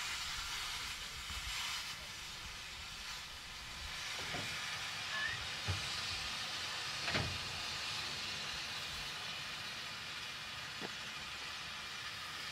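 Steam hissing steadily from the open cylinder drain cocks of an LNER Class J72 tank engine, with a few short knocks in between.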